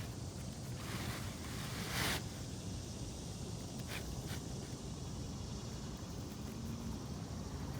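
Steady outdoor background noise, with a short scraping rustle about two seconds in and two faint clicks around four seconds in.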